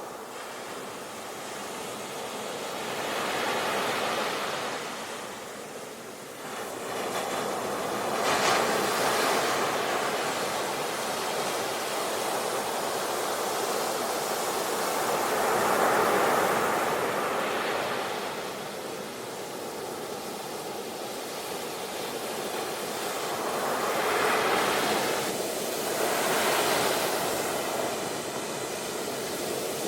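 Ocean surf: waves breaking and washing in, a steady rush that swells and falls back every several seconds, with louder surges about 8 seconds in, in the middle and near the end.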